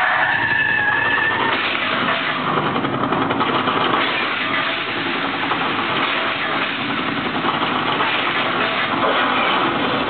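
Loud, steady engine noise from a staged car-stunt effect, with no single bang standing out.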